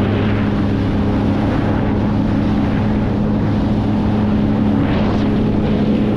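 Sea-Doo jet ski running steadily at speed through rough swells, its engine hum under wind and water rushing past the microphone, with a brief louder rush of noise about five seconds in.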